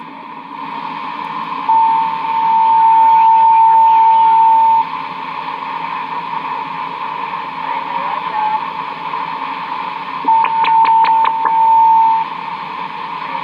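CB radio receiver hissing with atmospheric static, with a loud, steady whistle-like tone coming in twice, for about three seconds and then for about two seconds near the end with a quick run of clicks; the kind of carrier noise and atmospheric noise heard when conditions bring in distant stations.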